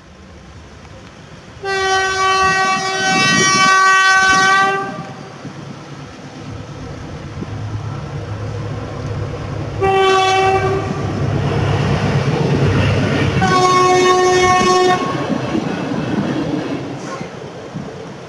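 Electric locomotive's horn sounding three warning blasts (a long one of about three seconds, a short one, then a medium one) as the train approaches. Underneath is the train's low running rumble, growing louder.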